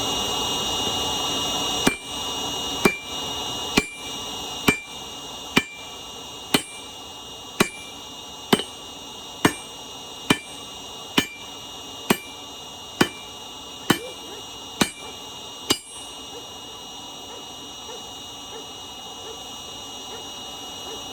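Hammer blows on a hot railroad spike against an anvil, flattening it: sixteen evenly spaced strikes about one a second, each with a short metallic ring, stopping a few seconds before the end. A steady high whine from the forge's small blower runs underneath.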